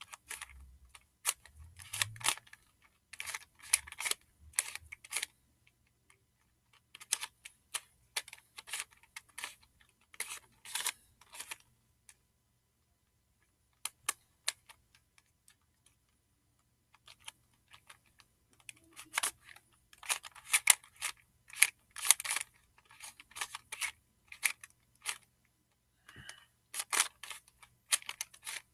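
Plastic barrel cube, a 3x3 twisty puzzle, being turned by hand: bursts of quick clicking turns, broken by short pauses and by a longer pause of several seconds about halfway through.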